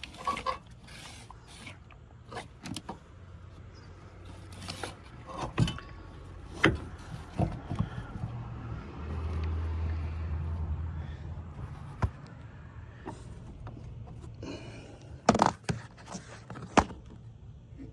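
Scattered clicks, knocks and scrapes of metal parts and tools being handled while a hydroboost brake booster is refitted, with a sharper cluster of knocks near the end and a low hum for a couple of seconds in the middle.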